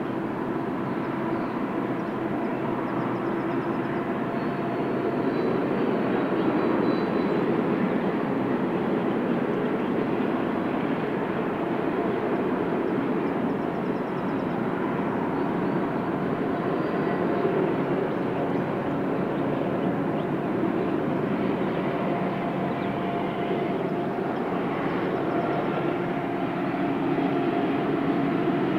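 Union Pacific manifest freight train rolling past, a steady noise of steel wheels on rail with a few faint thin tones, swelling slightly about five seconds in and again near the end.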